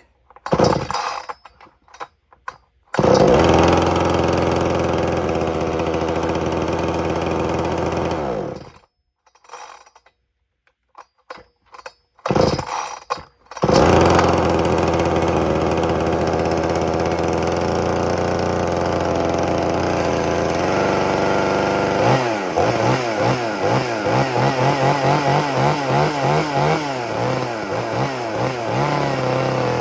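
Xtremepowerus 62100XP two-stroke chainsaw cold-started on choke. Several pulls of the starter cord, and the engine catches about three seconds in and runs steadily, then dies after about five seconds. More pulls bring it back at about 14 seconds, and it runs at a high steady speed; from about 22 seconds its speed rises and falls over and over as it is revved.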